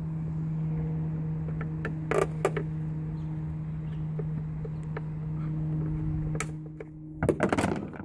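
Flathead screwdriver prying at a plastic cap beside a Jeep Patriot tail lamp: a few sharp clicks, then a quick cluster of knocks near the end as the cap pops out, over a steady low hum.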